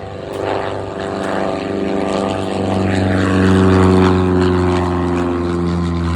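Propeller airplane passing close by, its engine and propeller drone growing louder to a peak about four seconds in, with the pitch dropping slightly as it goes past.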